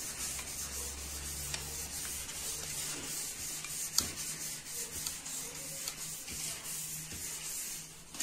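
Click-type torque wrench tightening cylinder head bolts, with a sharp click about four seconds in as a bolt reaches its set torque of 18 lb-ft. A steady hiss runs underneath throughout.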